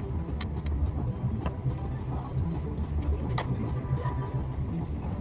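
Steady low rumble of background room noise, with a few faint clicks.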